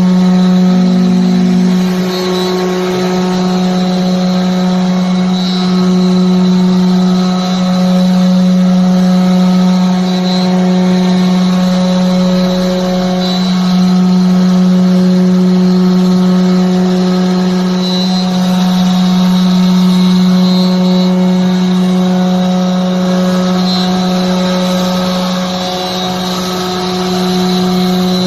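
CNC router spindle running while it cuts wood: a steady hum with a stack of overtones, swelling and dipping slightly in loudness as the bit works through the cut.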